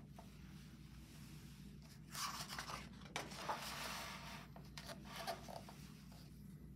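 A page of a hardcover picture book being turned, then smoothed flat by hand: a paper rustle and scrape about two seconds in, followed by a few small rubs and taps against the page.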